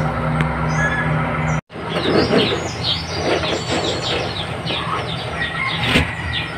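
A small incubator fan hums steadily and breaks off sharply about a second and a half in. After that, many small birds chirp rapidly, with soft knocks of duck eggs being shifted on a wooden tray.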